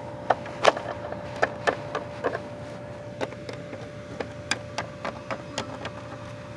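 Small plastic toy figure tapping and clicking against a plastic toy dollhouse as it is hopped along: about a dozen sharp, irregular taps, the loudest in the first two seconds or so. A steady faint hum runs underneath.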